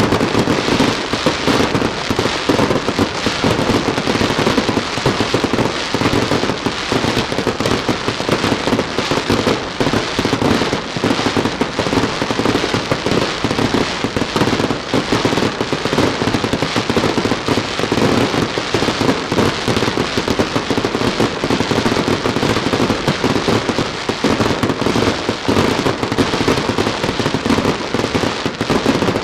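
Aerial fireworks barrage: shells and rising comets bursting overhead in rapid, densely overlapping bangs with no letup.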